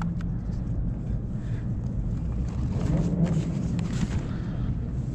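Wind buffeting the microphone as a steady low rumble, with faint rustles and small plastic clicks as a folded DJI Mini 2 drone is handled and its gimbal guard pulled off.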